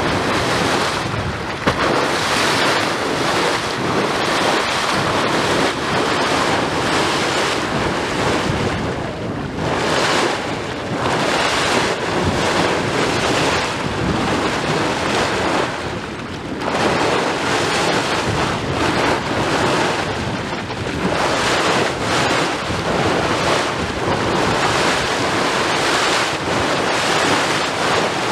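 Air-laden cooling water from a power station's outfall boiling up through the river surface in a continuous churning, splashing rush, easing briefly twice. Wind buffets the microphone.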